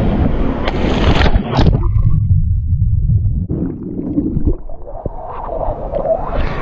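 Splashing as the camera plunges into pool water, then muffled, low underwater rumbling with the higher sounds suddenly cut off, until the camera breaks the surface again near the end.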